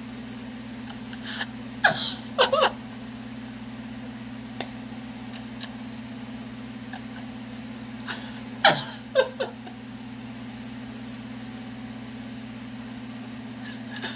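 A man's short bursts of stifled laughter, a few quick ones about two seconds in and again about nine seconds in, over a steady low electrical hum.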